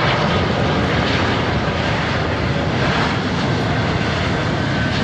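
Steady jet engine noise from an Airbus A330-243, its Rolls-Royce Trent 700 turbofans running as the airliner lands.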